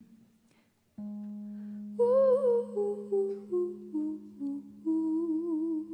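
A woman sings a slow melody that steps downward note by note, with vibrato, over one low keyboard note held steadily. The keyboard note starts about a second in and the voice enters about a second later.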